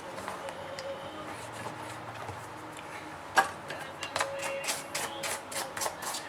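Hand work on a phone during a screen repair: faint handling ticks, a sharp click about halfway through, then short rubbing or scraping strokes about three a second, typical of cleaning adhesive off the phone's back.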